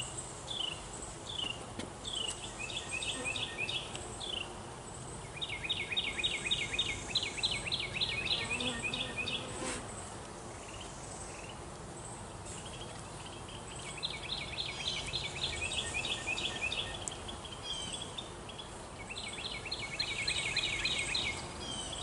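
High-pitched chirping trills repeating in bouts of a few seconds, with single down-slurred chirps near the start, over a faint hum of honeybees around the open hive.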